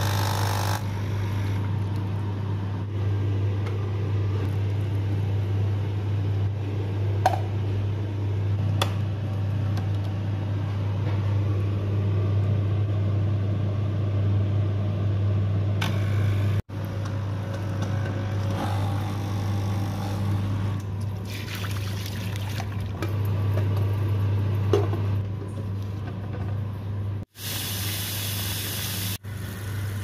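Nespresso Krups Inissia coffee machine's pump running with a steady hum, pushing descaling solution through the machine so that it trickles from the spout into a container. Near the end, tap water splashes into a stainless steel sink.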